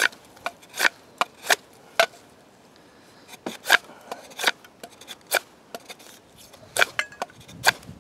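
A mini parang's steel blade chopping down along a peeled wooden stick held upright on a log. It is a series of sharp, irregular chops, with a pause of about a second after the first few.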